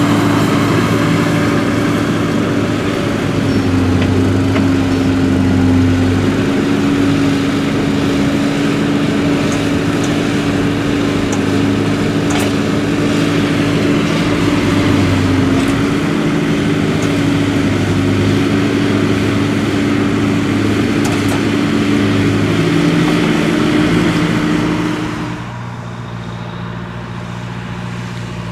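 Large farm tractor's diesel engine running steadily with a deep drone that wavers slightly in pitch. About 25 seconds in it becomes quieter and the higher part of the sound drops away.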